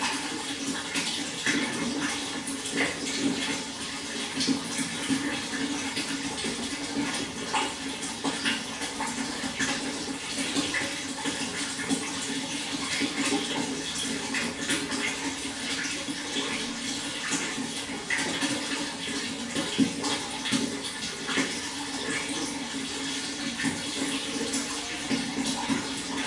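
Water flowing steadily, with a constant rush and many small splashes.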